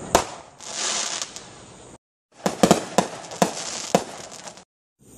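Aerial fireworks going off: a sharp bang just after the start and a crackling hiss about a second in, then a quick run of about six bangs in the middle. The sound drops to dead silence twice, briefly.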